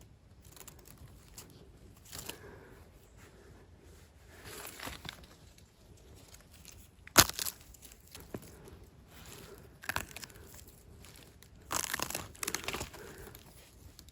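Scattered rustling and crackling of leaves and twigs on a forest floor, with a sharp snap about halfway through and a denser stretch of rustling near the end.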